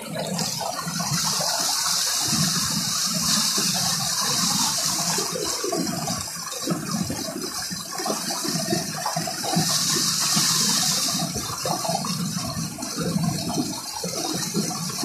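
Tubewell water gushing out of a plastic outlet pipe and splashing down into a concrete tank. It is a steady rush, with the hiss swelling louder twice.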